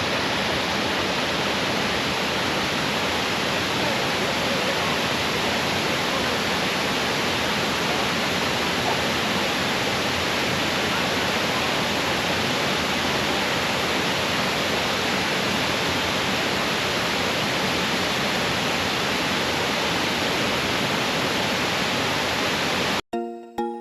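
Steady rush of water pouring over a waterfall. Music cuts in suddenly near the end.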